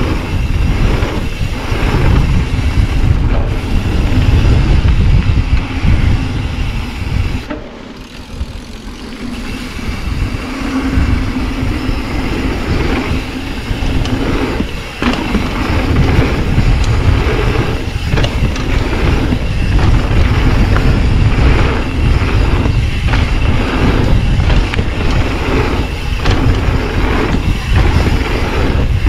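Mountain bike riding down a dirt flow trail: a loud, steady rumble of tyres and wind with frequent knocks and rattles from the bike over bumps, easing briefly about eight seconds in.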